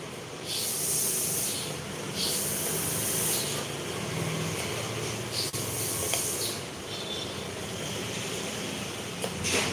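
A knife slicing a green vegetable into thin strips on a wooden chopping board, with a few sharp knocks of the blade against the board, over a low steady hum. Three hisses of about a second each stand out above it, the loudest sounds here, from a source that cannot be made out.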